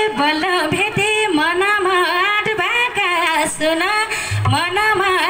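A woman singing a line of a Nepali dohori folk song through stage loudspeakers, her voice gliding between long held notes.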